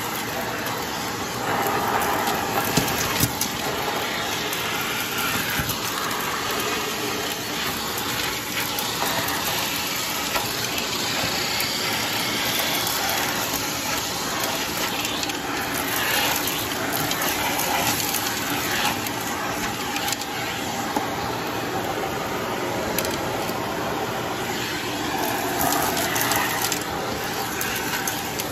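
Bissell vacuum cleaner running steadily while its hose and brush tool work over carpet, with scattered crackles and ticks as grit and bits of debris are sucked up the hose.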